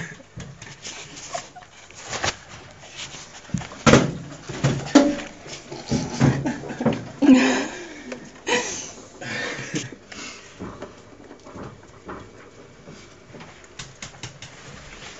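A broom pushed and jabbed about on a hard floor: irregular bristle swishes and knocks, with the loudest thumps between about four and nine seconds in, then quieter.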